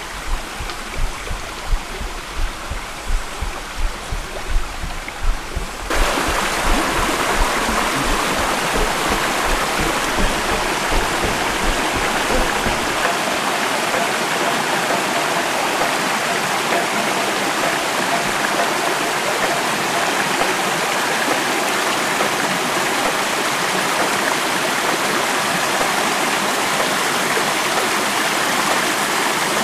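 Small stream rushing and splashing over rocks, a continuous noisy rush of water that grows louder about six seconds in. A low, irregular rumble sits underneath for roughly the first dozen seconds.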